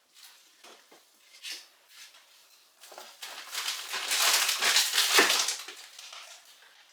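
Groceries being handled and put away: a few light knocks, then about two and a half seconds of loud rustling packaging.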